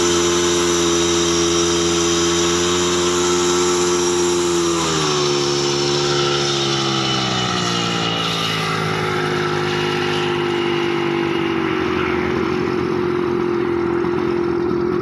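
Engine of a home-built light aircraft running on a ground engine test. Its speed drops about five seconds in and picks up again later.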